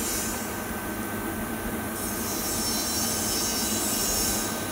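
Steady mechanical background noise with a faint constant whine and a high hiss that fades for about a second and a half near the start, then comes back.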